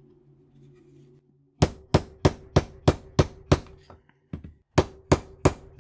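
Hammer striking a steel punch to drive a stuck bearing out of a circular saw's cast aluminum housing. It is a quick run of about a dozen sharp metal strikes, roughly three a second, with a short pause partway through.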